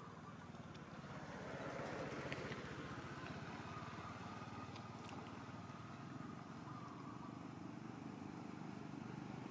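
A motor vehicle engine running with a steady low hum, with a few faint ticks over it.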